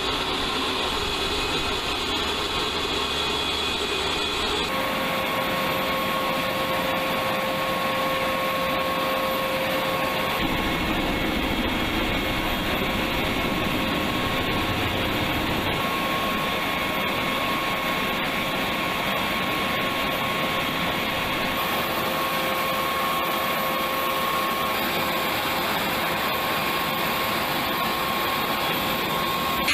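Steady turbine whine over a constant rushing roar from a Panavia Tornado's machinery running on the ground during pre-flight. The sound shifts abruptly a few times.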